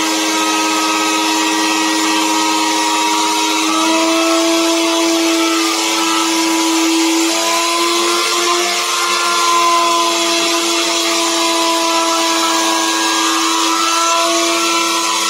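Handheld electric router running at full speed while its bit cuts a design into a wooden board: a steady whine over a hiss, its pitch wavering slightly as it is pushed through the wood.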